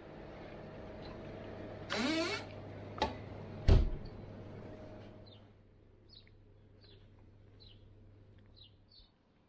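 Steady hum of a refrigerated drinks cabinet, broken by a short hiss about two seconds in and then a click and a heavy thump. For the last few seconds small birds chirp over a quieter background outdoors.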